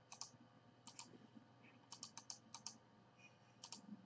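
Faint typing on a computer keyboard: irregular keystrokes in short runs of two to four clicks.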